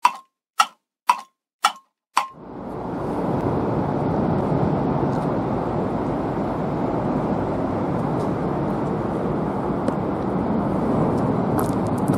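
A clock-ticking sound effect, about two ticks a second, stops a little over two seconds in. Steady outdoor background noise follows, a low rushing haze.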